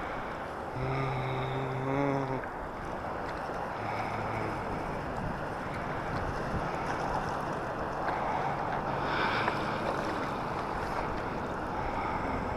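Steady outdoor rushing noise, with a brief low hum about a second in and faint high tones now and then.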